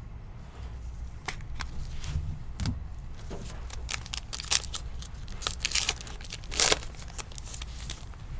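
Foil trading-card pack wrappers crinkling and cards being handled, a string of short rustles and snaps, loudest about four and a half and six and a half seconds in, over a steady low hum.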